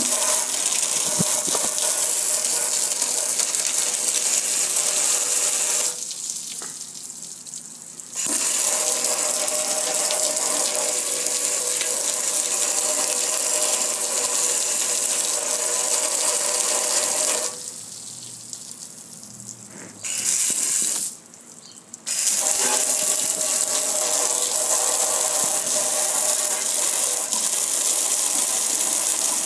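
A hard jet of water hisses and splashes steadily against a metal gas grill and the patio under it. The spray cuts out three times: for about two seconds a fifth of the way in, and twice more just past the middle, the second time only briefly.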